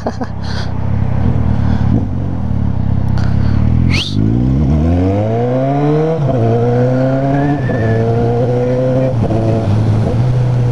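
Motorcycle engine and exhaust running steadily low, then about four seconds in revving up as the bike pulls away, with a drop in pitch near six seconds as it shifts up, then running steadily at cruising speed.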